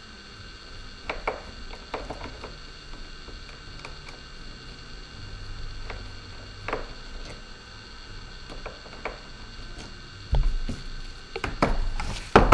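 Small screwdriver and screw clicks and light taps on a DJI Phantom 4's plastic motor arm as the last motor screws are backed out. Louder handling knocks and thumps come near the end, over a steady low hum.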